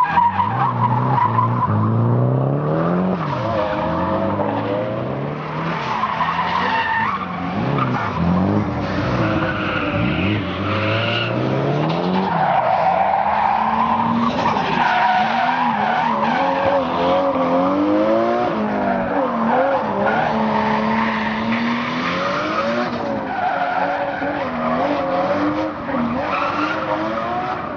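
Nissan Skyline R32 drifting: its engine revs rise and fall again and again as the driver works the throttle through the slides, over a steady screech of sliding tyres.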